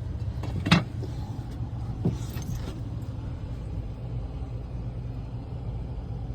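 Air handler blower running with a steady low rumble, the indoor fan moving air while the system is not cooling. A sharp knock comes about three-quarters of a second in and a lighter one about two seconds in.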